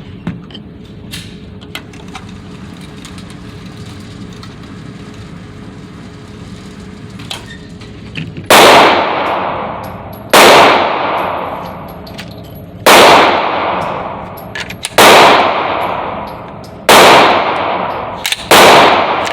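Six shots from a Smith & Wesson M&P .22 LR firing Aguila Super Extra .22 LR rounds, starting about eight seconds in and spaced about two seconds apart, each followed by a long ringing echo. Before the shots there are only a few faint clicks over a low steady background.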